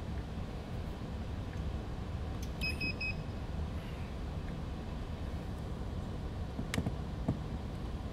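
Three quick electronic beeps at one pitch, about three seconds in, as FPV gear is switched on, over the steady low hum of a small fan. Two sharp clicks near the end.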